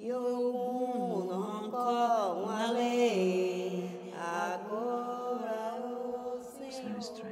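Chanted singing: a voice holding long notes that slide up and down between pitches, over a steady low drone.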